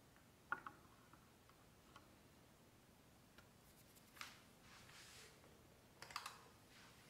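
Faint handling sounds of a paper filter being settled in a plastic Clever dripper on a kitchen scale: a sharp tap about half a second in, soft paper swishes around four and five seconds, and a few small clicks near the end.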